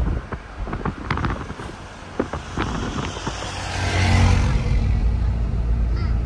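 Car driving along a road, heard from inside the cabin: a steady low road rumble, with a few clicks and knocks in the first three seconds and a louder rush of road noise building about four seconds in.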